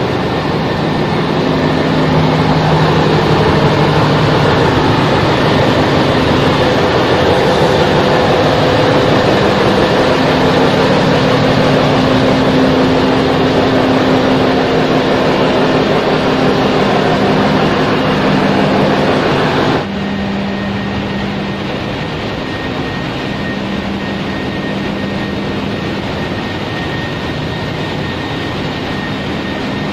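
Loud, steady din of ship's engine-room machinery running, with several steady humming tones under a dense rush of noise. About twenty seconds in it changes abruptly to a slightly quieter, duller din with a thin high whine.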